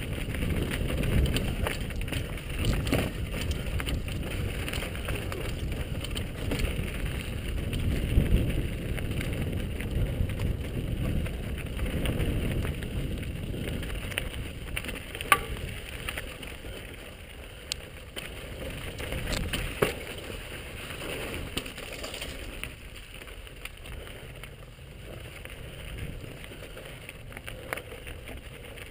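Downhill mountain bike riding over a rocky gravel trail, heard from a helmet camera: a steady rush of wind on the microphone mixed with tyre noise on loose stones and rattling from the bike. A few sharp clicks and knocks stand out, and the noise eases off in the last several seconds.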